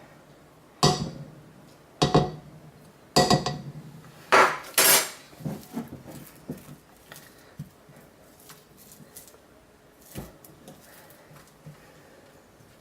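A utensil scraping out a crock pot, with four or five sharp knocks against the pot in the first five seconds and a longer scrape, then fainter taps and scrapes that thin out.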